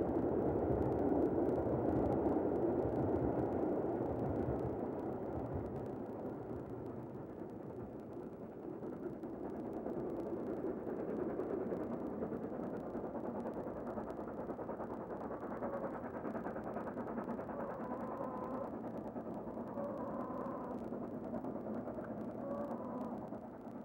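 Steam locomotive working hard, hauling a passenger train up a long gradient. Its exhaust is loudest for the first few seconds, then fades to a steadier, fainter sound as the train draws away.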